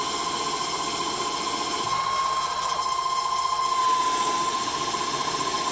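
CNC-controlled metal lathe running a turning pass: the spindle and chuck spinning with a steady whine while the carriage feeds the cutter along the shaft.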